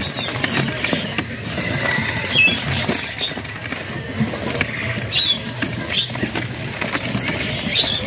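Several caged common ioras (cipoh) fluttering inside their cage, wings flapping and feet scrabbling on the perch in a run of quick ticks and scrapes, with a few short high chirps.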